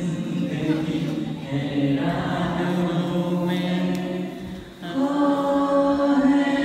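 Unaccompanied singing: long held notes, breaking off briefly about five seconds in before the next phrase starts.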